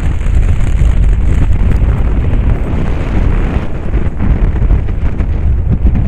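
Strong wind buffeting the microphone of a climber's worn camera: a loud, unpitched low rumble that rises and falls with the gusts.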